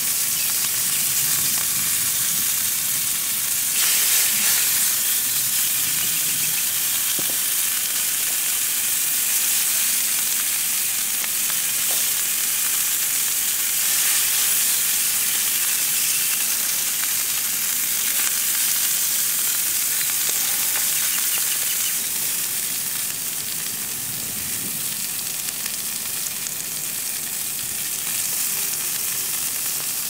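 Meat sizzling steadily as it cooks.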